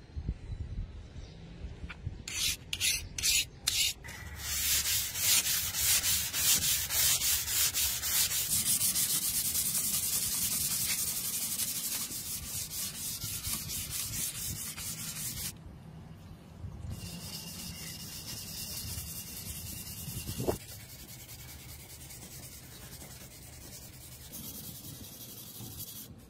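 Hand-sanding a steel sword blade with an abrasive pad, rubbing back and forth. A few separate strokes come first, then fast continuous scrubbing. After about fifteen seconds the rubbing turns quieter, with a single knock near twenty seconds.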